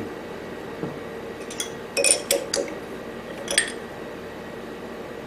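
A few light metallic clinks and taps as small metal parts and tools are handled in the shop: a cluster about two seconds in and another single clink a little later.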